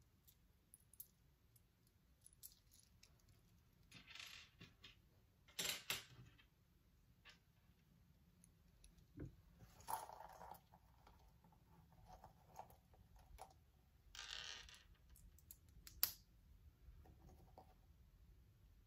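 Faint handling of small plastic building-set pieces: scattered light clicks as pieces are picked up and pressed together, with a few brief rustles.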